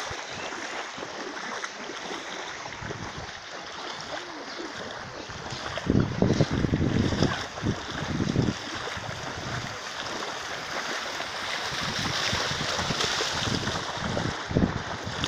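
Steady rush of moving floodwater with wind buffeting the microphone, the gusts heaviest about six to eight seconds in and again just before the end.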